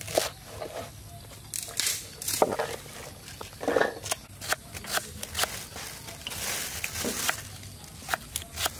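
A cleaver chopping crisp water spinach stems on a wooden cutting board: irregular sharp crunchy chops.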